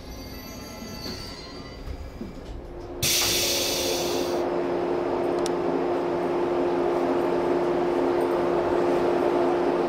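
Shinano Railway SR1 series electric train at a station platform: after a sudden hiss about three seconds in, a steady hum with a clear constant tone.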